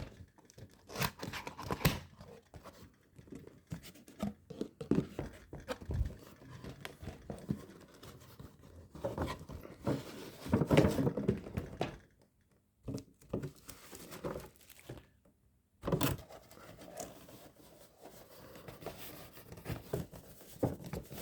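Cardboard and plastic packaging being opened by hand: irregular crinkling, tearing and rustling with scattered light knocks, stopping briefly twice near the middle.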